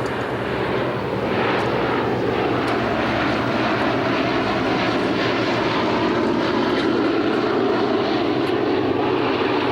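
Boeing B-17 Flying Fortress's four Wright Cyclone radial piston engines running steadily in flight, a continuous propeller-aircraft drone that grows slightly louder about a second in.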